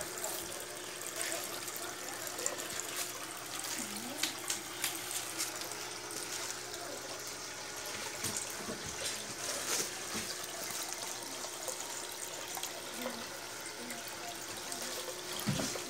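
Water trickling and splashing steadily down a cement rock-style fountain into its bowls.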